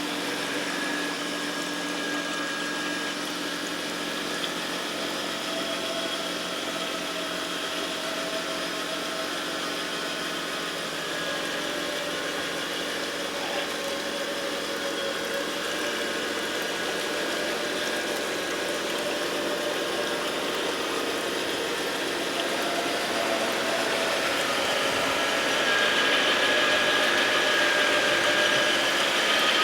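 Steady mechanical whine of a motor running without a break, its tones wandering slightly in pitch, getting louder near the end.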